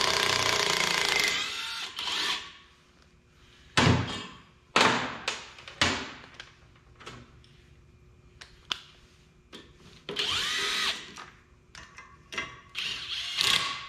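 Cordless drill running in short bursts of a second or two, at the start, about ten seconds in and again near the end, as valve springs come off a 5.9 Cummins 12-valve cylinder head. Sharp metal clinks and knocks of the parts come in between.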